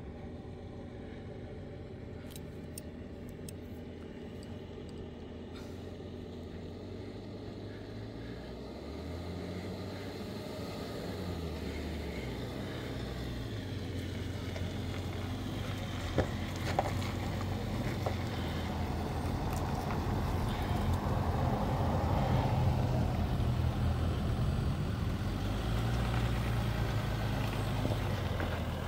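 Jeep Wrangler JL Rubicon on 37-inch tyres crawling up to and onto a boulder, its engine running low and getting louder as it nears, the engine note rising and falling as the throttle is worked. A couple of sharp clicks about halfway through.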